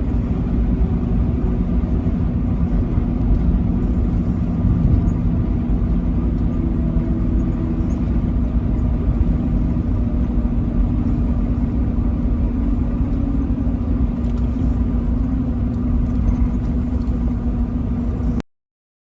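Vehicle travelling at highway speed: steady engine drone and road noise with a constant low hum, cutting off suddenly near the end.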